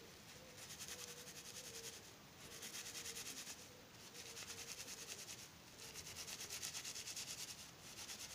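Fingers rubbing a small fabric pouch holding a bar of soap, in four faint bouts of quick back-and-forth strokes, each lasting a second or two.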